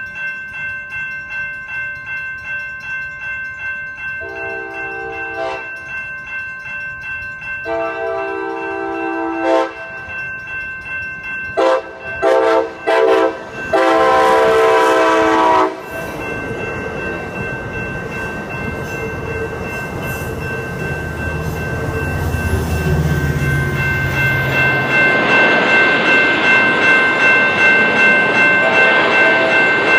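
Amtrak passenger train's horn sounding for a grade crossing: two long blasts, three short ones, then a final long blast. A crossing bell rings steadily throughout. After the horn, the train's low rumble grows louder as it approaches.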